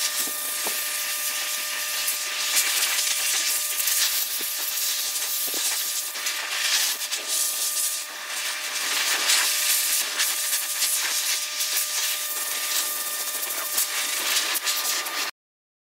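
Dog-grooming blow dryer blasting air onto a wet puppy's coat: a steady rush of air with a faint motor whine, swelling and easing as the nozzle moves over the coat. It cuts off abruptly near the end.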